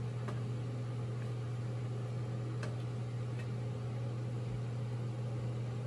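A steady low hum with a few faint clicks of a wooden spoon against a metal pot as chicken curry is stirred.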